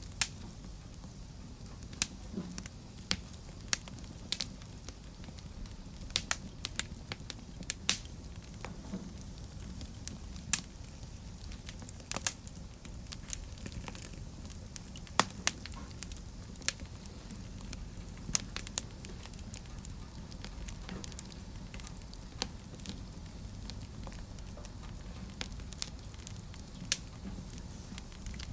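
Wood fire burning in a fireplace: a steady low rumble with frequent sharp, irregular crackles and pops.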